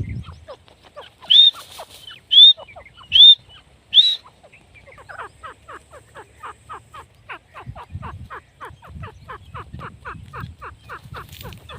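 Grey francolin calling. Four loud, short, high notes about a second apart are followed by a rapid run of short falling notes, about three a second, that continues to the end.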